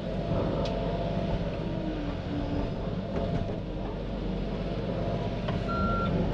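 Komatsu PC88 excavator running and working, heard from inside the cab, with a few short knocks. Near the end its travel alarm starts beeping in a steady on-off pattern, the sign that the machine is beginning to track.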